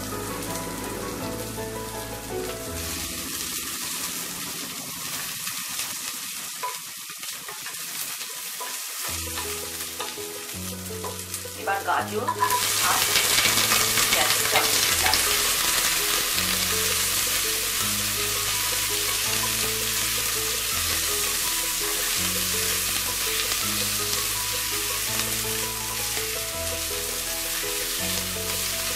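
Chopped onions and whole spices sizzling in hot oil in a pressure cooker pot. About twelve seconds in, carrot and capsicum go in: the sizzling gets much louder and a spatula stirs the vegetables.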